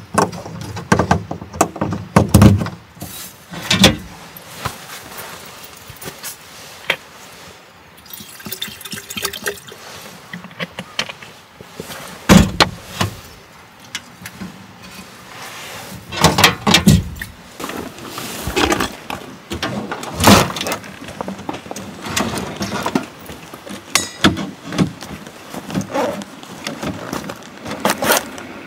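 Gear being handled on a metal tailgate shelf: an irregular string of knocks, clicks and clatters as a carafe, a bottle and a backpack are set down and moved. About eight seconds in there is a short stretch of water being poured into a vessel.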